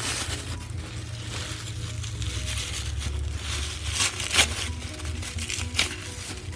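Tissue paper crinkling and rustling as hands peel it off a doll's leg, with sharper crackles about four seconds in and once more near the end.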